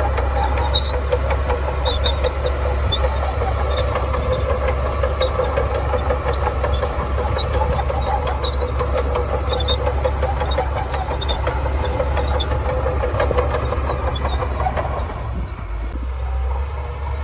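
Shantui DH17C2 bulldozer's diesel engine working under load, with a rapid run of small clanks over it; the engine eases off about fifteen seconds in.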